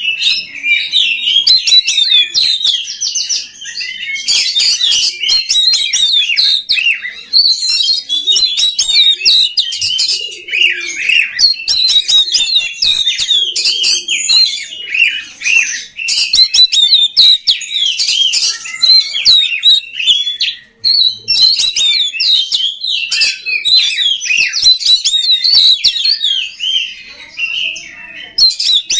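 Oriental magpie-robin (kacer) singing continuously: a fast, varied stream of high whistles, chirps and rattling notes, with a brief break about twenty seconds in.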